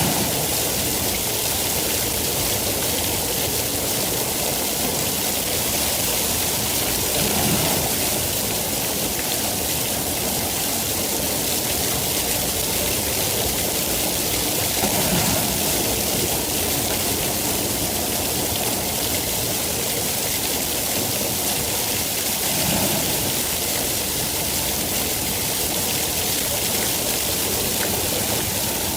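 Steady, dense rain hiss with no breaks, with a soft swell about every seven to eight seconds.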